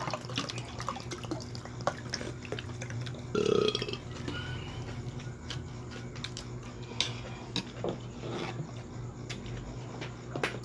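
Close-up mouth sounds of someone eating oysters and rice: wet chewing and small lip smacks throughout, with one short louder throat sound, like a burp, about three and a half seconds in.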